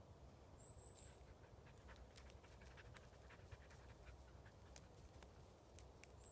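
Near silence, with faint scattered crackles and clicks of a dog moving through twigs and forest litter while it searches, more of them from about two seconds in.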